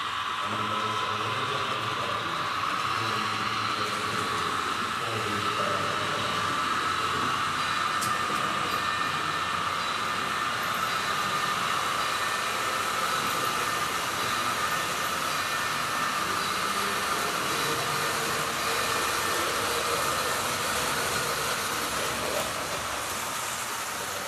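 H0-scale model trains running on the layout: a steady whir of small electric motors and wheels on track, with a low rumble in the first few seconds.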